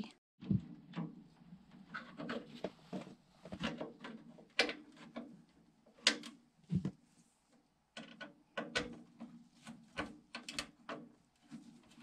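Scattered small clicks, taps and rubbing as hands handle the wires and sail switch bracket inside an open RV furnace casing.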